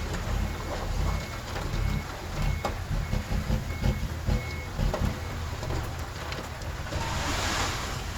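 Heavy diesel earthmoving machinery running with irregular knocks and clanks, while a backup alarm beeps about every two-thirds of a second for the first half, then stops. A broad hiss swells near the end.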